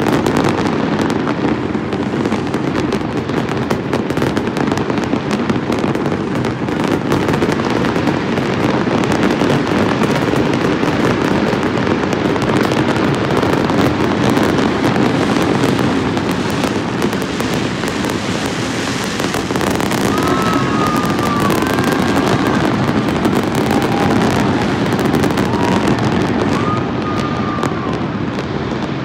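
Loud, continuous barrage of aerial fireworks: countless bangs and crackles run together into a steady din, with a few short whistling tones in the last third.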